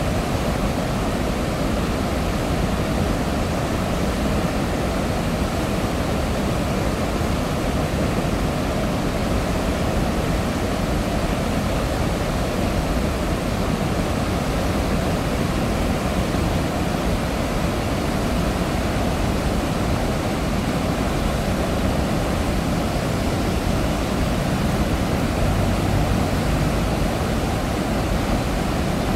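Floodwater released through a dam's open spillway gates, pouring out and churning in the river below: a steady, unbroken roar, deepest in the low end.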